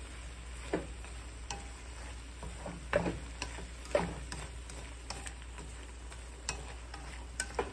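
Wooden chopsticks stirring bitter melon and egg in a stone-coated wok, knocking against the pan in irregular sharp taps, with a faint frying sizzle underneath.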